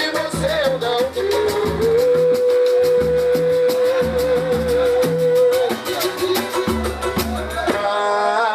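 Live samba band playing: fast, even percussion over regular deep drum strokes, with a long held sung note in the middle. The high percussion drops out near the end as a wavering sung line comes in.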